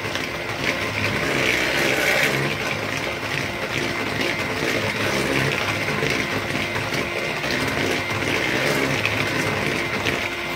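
Electric hand mixer running steadily with a constant motor whine, its twin beaters whipping creamed butter, sugar and eggs into cake batter in a plastic bowl.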